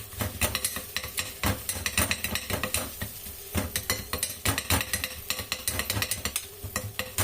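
Metal bread-dough cutter and dosa turner chopping parotta on a hot tawa: a rapid, irregular clatter of metal blades striking the pan, several strokes a second, the kothu ('chopping') stage of kothu parotta.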